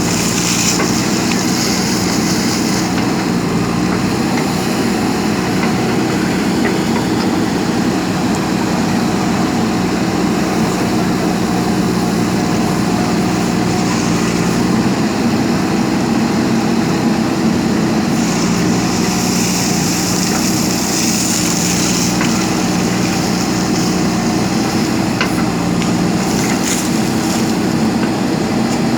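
JCB backhoe loader's diesel engine running steadily at working revs, with a louder hiss for a few seconds at the start and again about twenty seconds in.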